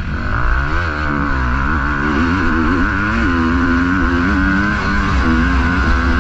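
KTM 250 SX-F single-cylinder four-stroke motocross engine running under load as the bike is ridden, its revs rising and falling over the first three seconds or so, then holding steadier.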